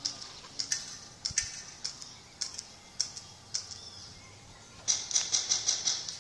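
Airsoft guns firing: sharp single shots every half second or so, then a rapid string of about seven shots near the end.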